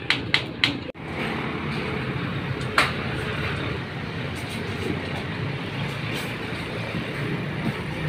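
Three quick hammer blows, then after a sudden break a steady engine drone with a low hum, with one sharp knock about three seconds in.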